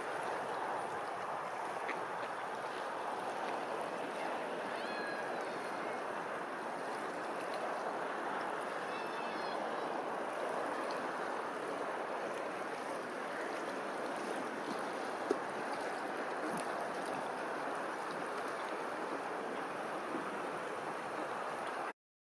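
Steady rush of water on choppy open water, with a few faint bird calls about five and nine seconds in and a single short tap about fifteen seconds in.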